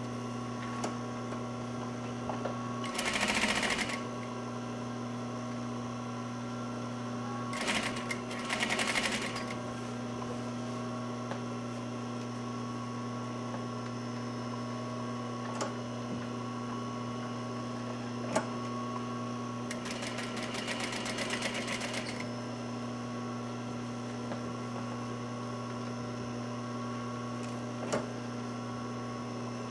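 Sewing machine stitching fabric in short runs: three brief bursts of rapid stitching in the first ten seconds and a longer run of about two seconds later on, over a steady low hum, with a few single clicks between.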